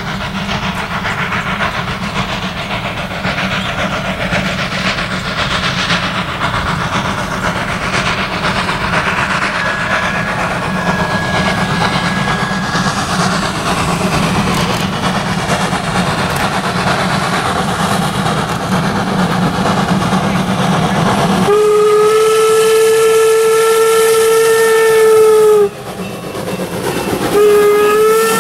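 N&W 475, an M-class 4-8-0 steam locomotive, running toward and past with a freight train: a steady rush of exhaust and running gear that grows slowly louder. Its steam whistle then sounds a long blast about three-quarters of the way in, and a second long blast begins near the end.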